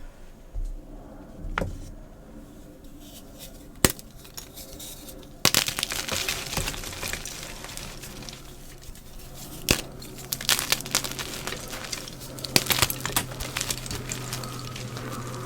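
Gym chalk being crushed into crumbles: a couple of sharp snaps in the first few seconds, then dense crackling crunching from about five seconds in, with louder cracks along the way.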